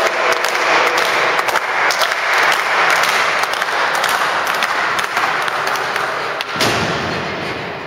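Wrestling crowd cheering and clapping in a large hall. The noise changes about six and a half seconds in and fades toward the end.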